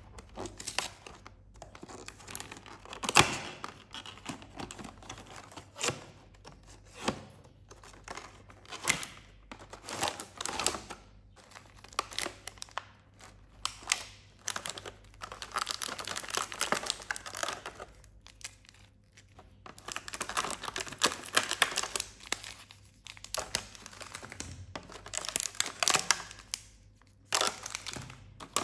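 Cardboard snack box torn open along its perforated strip, then a clear plastic tray of foil-wrapped biscuits handled: tearing cardboard and crinkling, crackling plastic and wrappers, with many sharp snaps. The loudest snap comes about three seconds in.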